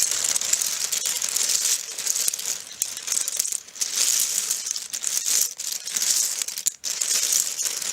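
A pile of loose Finfolk Mythic mermaid scales being stirred and turned over by hand: a dense, continuous clatter of many small pieces with sharp little clicks.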